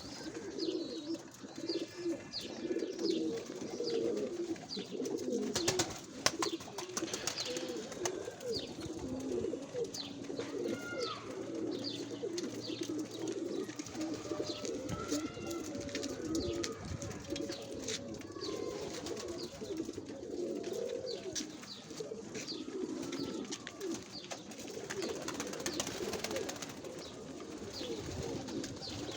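Many domestic pigeons cooing continuously in overlapping calls, with scattered sharp clicks and short higher-pitched calls over the cooing.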